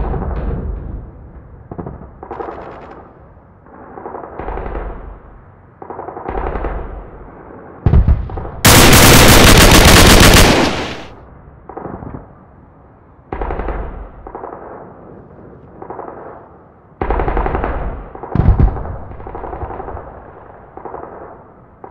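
Automatic gunfire sound effects in repeated bursts of rapid shots, with a long, very loud burst of about two seconds starting about nine seconds in.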